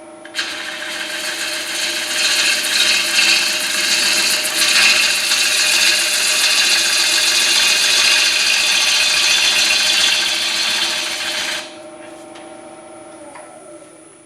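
A turning gouge cutting into a spinning, soaking-wet hard maple bowl blank on a STRATOS XL wood lathe. It makes a loud, continuous shearing hiss as shavings peel off the outside of the bowl while the last of the bark is cleared. The cut starts about half a second in and stops abruptly near the end, leaving the lathe's steady motor whine.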